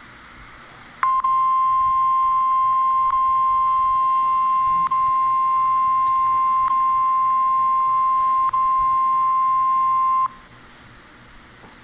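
NOAA Weather Radio warning alarm tone, the steady 1050 Hz tone that marks a warning broadcast (here a severe thunderstorm warning), coming in about a second in and held unbroken for about nine seconds before cutting off. It plays through a phone's speaker from an internet stream, with faint clicks about every two seconds.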